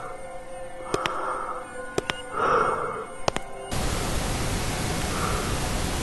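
Electronic soundtrack music with sharp clicks and swells repeating about every second and a half, cut off suddenly nearly four seconds in by a steady static hiss.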